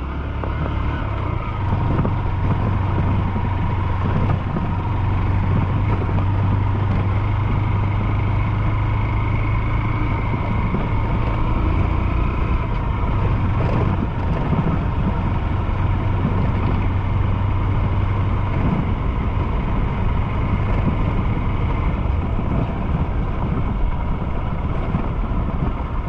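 Honda CG 150 Fan motorcycle's single-cylinder four-stroke engine running steadily as the bike is ridden along the road.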